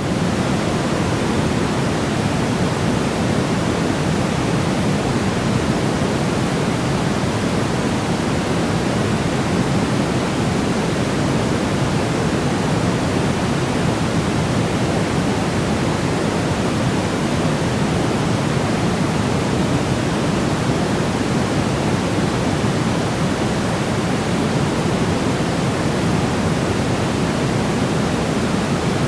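Steady, unbroken white noise for baby sleep: a constant soft rushing hiss, fuller in the low end than in the highs.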